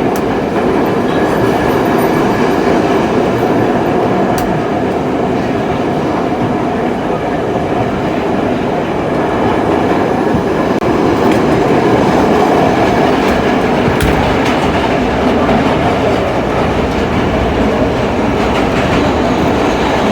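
An R32 subway car running at speed, heard from inside the car: a steady loud rumble and rattle of wheels on track, with a few sharp clicks over the rail joints.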